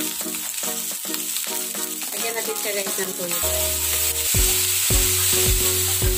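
Chicken feet sizzling in a hot wok as soy sauce is poured over them, over background music whose drum beat comes in about two-thirds of the way through.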